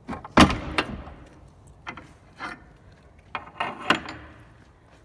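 Wooden barn door being shut and latched: a loud knock about half a second in, then a series of lighter knocks and rattles, with another cluster near the end.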